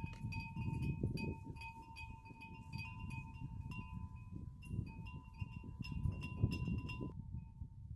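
Wind chimes ringing, with repeated struck notes over a sustained tone, against the rumble of wind on the microphone. The chiming stops abruptly about seven seconds in, while the wind rumble carries on.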